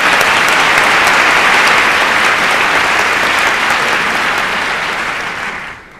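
Large theatre audience applauding, the clapping dying away just before the end.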